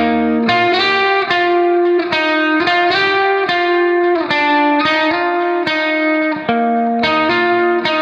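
Background instrumental music: a plucked string instrument picking a steady run of ringing notes, a new note about every half second.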